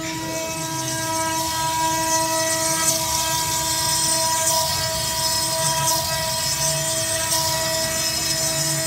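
Stone CNC router spindle running with a steady whine of several pitches while its bit cuts into a stone slab under a water coolant spray, with a noisy hiss of cutting and spray that grows stronger about a second in.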